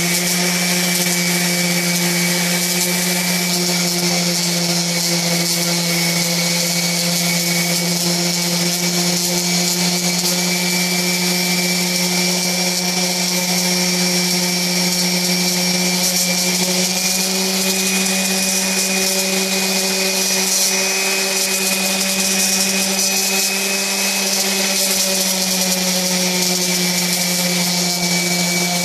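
Electric random-orbit palm sander running steadily while sanding a wooden 2x4 block: a constant motor hum with a high whine over it.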